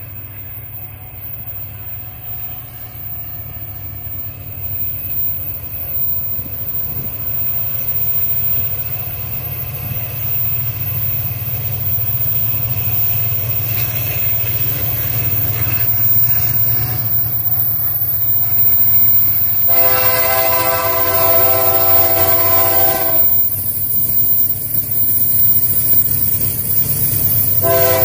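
Diesel locomotives of a freight train rumbling as they approach through a tunnel, the engine drone growing steadily louder. About two-thirds of the way in, the lead locomotive sounds its multi-tone air horn in one long blast of about three seconds, and a second blast begins near the end.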